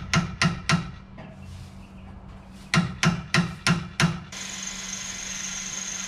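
Two quick runs of hammer blows, about three a second: a few near the start, then about six more near the middle. After the second run a steady hiss with a high thin whine sets in.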